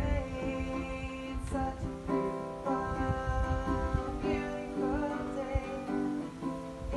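A woman singing, accompanied by a strummed acoustic guitar.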